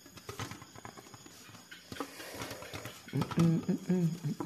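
Faint clicks and scrapes of fingers tearing cooked chicken on a metal plate. About three seconds in, a man's low wordless voice hums short broken notes.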